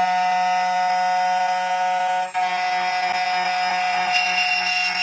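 CNC key cutting machine's spindle motor running with a steady whine while it mills a copper blank into an HYN14 key blank, dipping for an instant a little over two seconds in.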